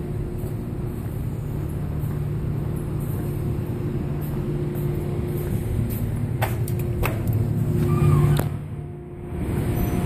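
Steady low machine hum from a neighbouring business's machinery, heard from across the block, getting a little louder as the listener moves outside. A few sharp knocks about six to eight seconds in.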